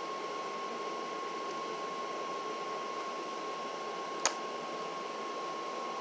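Steady room noise, an even hiss with a faint constant tone, broken by a single sharp click about four seconds in.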